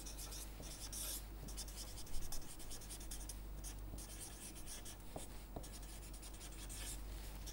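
Felt-tip marker writing on a sheet of paper: faint, irregular strokes of scratching.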